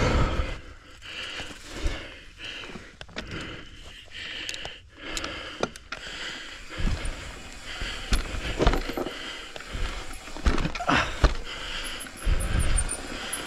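Full-suspension mountain bike riding down a rooty dirt trail: tyres knocking over roots and the bike rattling in an uneven run of knocks and clatter.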